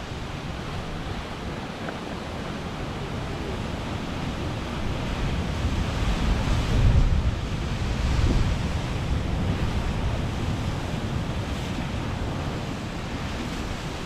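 Heavy ocean surf crashing against lava-rock sea cliffs, a steady wash of breaking water. One wave hits harder about six seconds in, swelling the low end for a couple of seconds before settling back.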